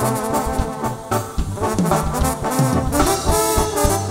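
Tierra Caliente band playing an instrumental passage, with trumpets carrying the melody over bass and drums.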